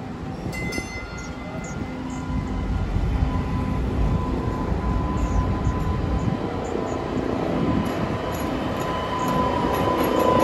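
MBTA Green Line light-rail train approaching on street track and passing close, its rumble growing louder throughout, with a steady whine from about two seconds in. A brief ringing tone sounds about half a second in.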